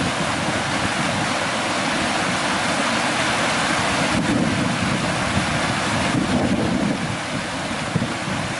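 Steady, loud rushing noise like wind or surf, with no distinct events.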